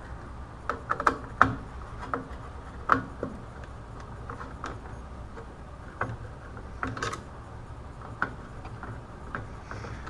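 Scattered small clicks and taps from handling a control unit's circuit board and its parts: a quick cluster in the first second and a half, then a few single clicks. A low steady hum runs underneath.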